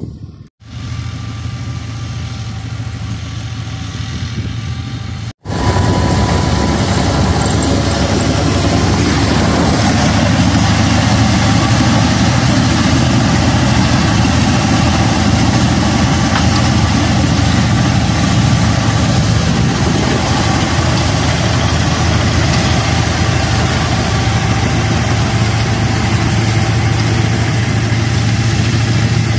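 Tractor engine running steadily under load while driving a straw reaper that chops wheat stubble into bhusa and blows it into a trolley: a loud, continuous machine drone with a low engine hum. It breaks off briefly twice in the first six seconds, then comes back louder and stays steady.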